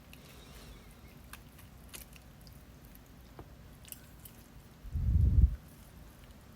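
Faint soft squishing and small clicks of a small knife and fingers working roasted chicken meat off the bones. A short, low thud comes about five seconds in.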